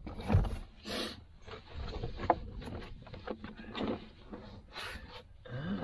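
A WeatherTech rear floor mat being pushed and shifted into place on the floor: an irregular run of scrapes, rubs and light knocks.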